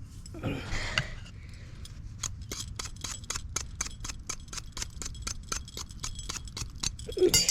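A hand tool clicking steadily, about four clicks a second for some five seconds, after a brief rustle near the start.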